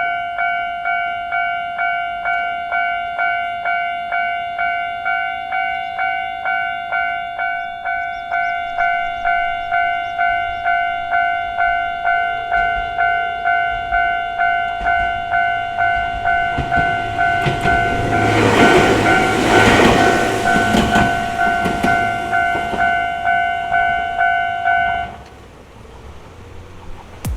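Japanese level-crossing warning bell ringing about twice a second while a Gakunan Railway train passes over the crossing, the train's running noise loudest about 18 to 21 seconds in. The bell stops a couple of seconds before the end.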